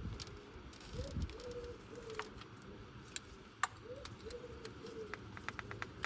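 A dove cooing repeatedly, each phrase a short rising note followed by level notes, with scattered clicks from hand tools on the engine and a quick run of ticks near the end.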